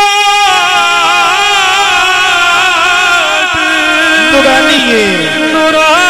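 A man singing a Punjabi naat into a microphone over a PA. He holds one long steady note, then about half a second in breaks into wavering, ornamented melismatic runs without clear words. A steady low tone sounds beneath from about halfway.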